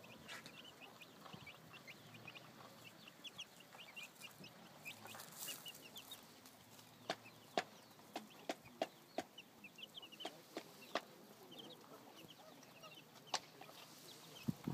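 Chicken chicks peeping: many short, high cheeps. Several sharp clicks come in the middle stretch and once more near the end.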